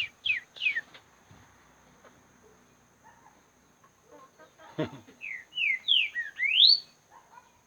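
A songbird calling: three quick descending chirps at the start, then, about five seconds in, a run of loud whistled notes that sweep down and then up.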